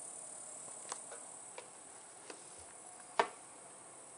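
Steady high chirring of crickets, with a handful of sharp clicks, the loudest about three seconds in.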